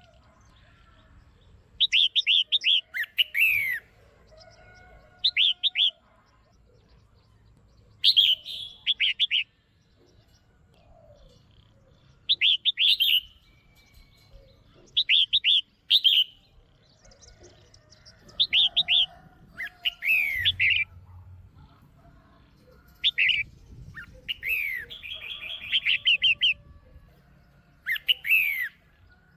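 Female red-whiskered bulbul calling: short bright bursts of quick chirping notes, some sweeping down in pitch, repeated every second or two. It is the female's call, used to stir males into singing.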